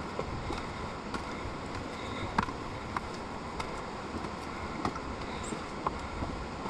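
A steady rushing noise with scattered light clicks and taps at irregular intervals, about one or two a second, from people climbing concrete steps.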